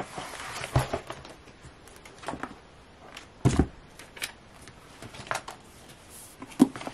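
Paper planners being handled on a desk: pages rustling, scattered light taps and clicks, and one heavier thump about three and a half seconds in as a spiral-bound planner is set down and opened.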